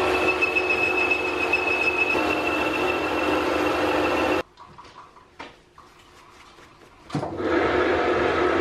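Metal lathe running, its cutting tool facing a spinning metal disc: a steady mechanical running noise with a high, thin whine. About halfway through it cuts out abruptly to a quiet stretch with a few light clicks, then the lathe running comes back near the end.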